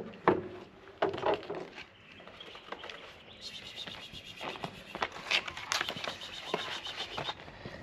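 A few sharp knocks, then a stretch of crackly rustling like packaging or food being handled, with two faint kitten mews near the end.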